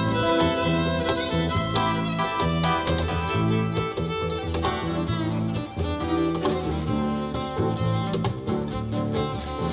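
Instrumental string music led by a fiddle over a moving bass line, with a steady beat.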